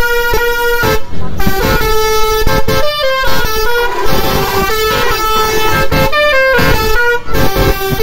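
Basuri-style telolet horn, a bank of roof-mounted trumpet horns on an Isuzu Traga pickup, playing a loud melody of held notes that step up and down in pitch, with short breaks between phrases.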